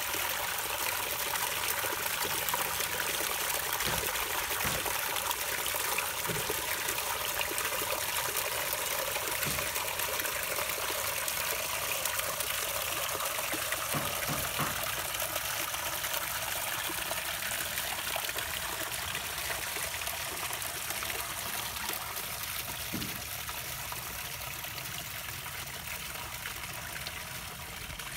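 Water pumped through a man-made rock creek, splashing over a low rock spill into a pool and trickling over stones downstream: a steady splashing babble that grows slightly quieter toward the end.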